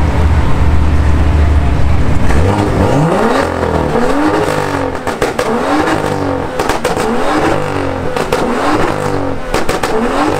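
BMW M2's turbocharged straight-six with its exhaust valves open: a deep steady idle, then from about two seconds in, quick revs one after another, roughly one every second and a half, with pops and crackles between them.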